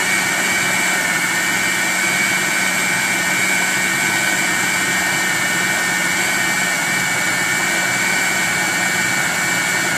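Electric food processor motor running steadily at full speed with a high whine, its blade chopping a wet mixture of chicken and sauces.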